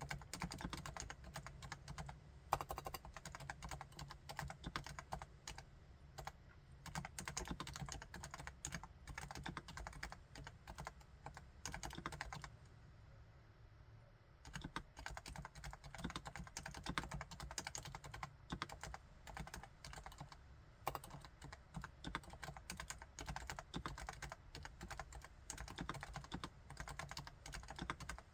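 Continuous typing on a Topre Realforce R4 keyboard with electrostatic capacitive switches: a steady stream of quiet keystrokes. There is a pause of about two seconds roughly halfway through.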